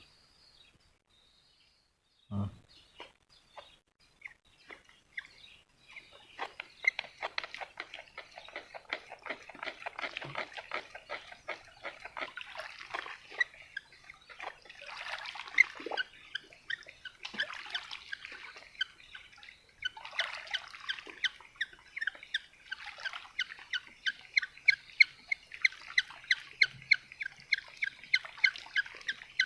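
Rapid clicking and squeaking of wire being twisted with pliers, growing into a fast, regular series near the end.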